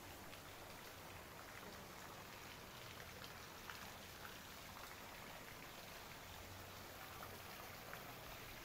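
Faint patter of falling water: an even hiss with scattered soft drops.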